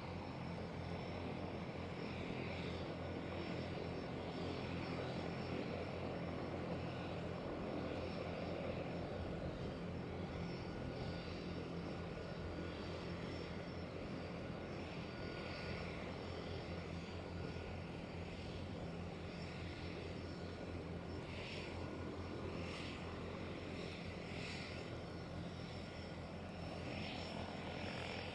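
A seaplane's propeller engine running steadily, a low, even drone. A few faint, short high-pitched sounds come near the end.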